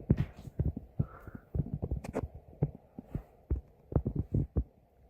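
Footsteps: irregular low thumps, several a second, some with sharper clicks and crunches.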